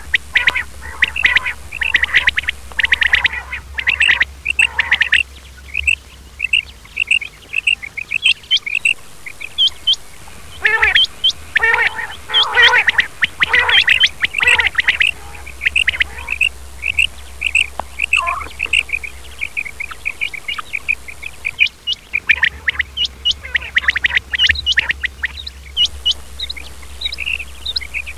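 Quail calling: many short, high chirps overlapping, with several bursts of denser, harsher calls, over a faint low hum.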